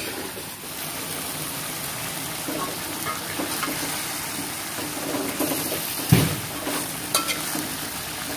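Chicken feet in a thick chilli sauce sizzling in an aluminium wok while a metal spatula stirs and scrapes through them. A sharp knock about six seconds in is the loudest sound, with a few lighter clicks after it.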